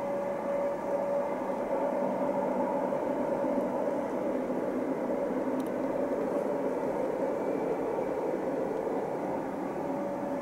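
Distant Rhaetian Railway electric train running along the mountain line: a steady rumble of wheels on rail.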